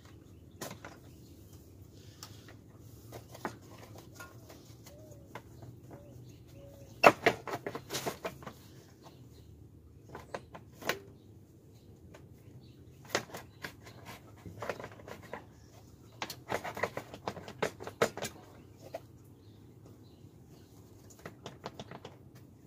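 Plastic radiator fan shroud being tugged and wiggled against the radiator, knocking and rattling in irregular clusters of sharp clicks. It won't come free because zip-tied transmission cooler lines are holding it down.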